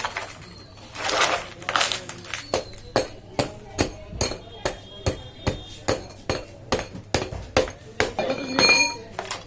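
Repeated hammer blows, about two or three a second, with a short metallic ring near the end.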